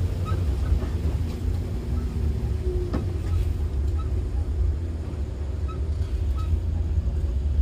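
Coach bus running slowly on a rough road, heard from inside the cabin: a steady low engine and road rumble with scattered small rattles and a sharp knock about three seconds in.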